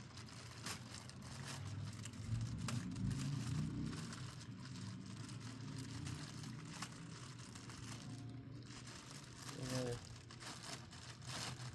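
Plastic packaging crinkling and rustling in irregular handfuls as it is pulled and torn open, over a steady low hum.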